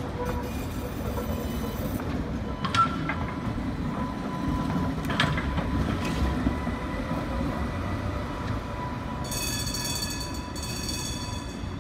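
A red New Orleans RTA streetcar rolling past on its rails with a steady low rumble, two sharp clicks a couple of seconds apart, and a high ringing tone near the end.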